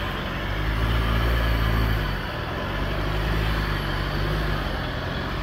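Four-wheel-drive engine running under load as it tows a caravan through deep mud. Its note dips briefly about two seconds in, then holds steady again.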